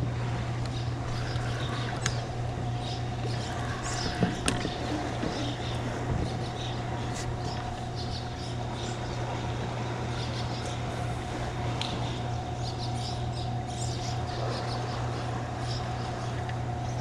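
Steady rush of fast river current below a spillway, with faint high bird chirps and a few light knocks around two and four seconds in.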